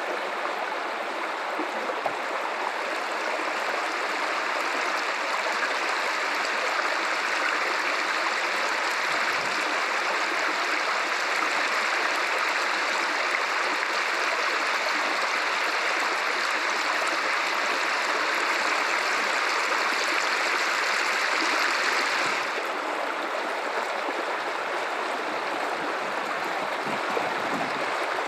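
Guadalupe River water running over rocks: a steady rushing flow. It turns suddenly a little softer and duller about two-thirds of the way through.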